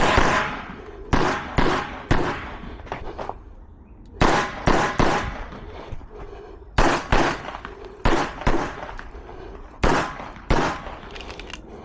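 Staccato P pistol firing a stage string: about a dozen sharp shots, mostly in quick pairs and threes, with pauses of one to two seconds between groups as the shooter moves between targets.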